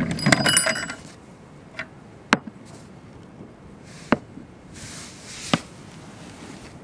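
Suppressed Anzio 20 mm rifle shot: a loud crack with a brief metallic ring in the first second, followed later by a few single sharp clicks and short hisses.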